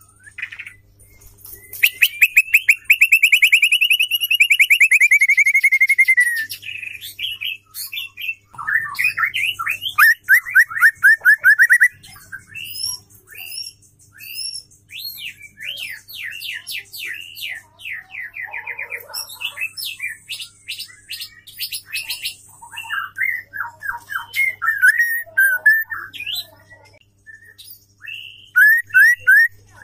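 Female white-rumped shama singing. A long, fast trill is followed by a run of quick repeated notes, then a varied string of short whistles, upward sweeps and brief trills.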